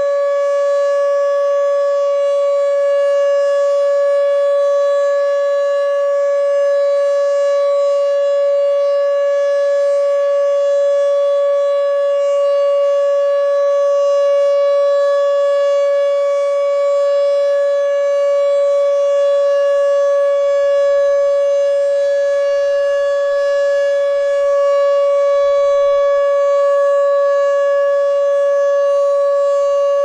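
Fedelcode dual-rotor Mach 5 outdoor warning siren sounding the full-alert signal, a loud steady tone held at one pitch with no rise or fall. It runs sluggishly and never reaches full speed.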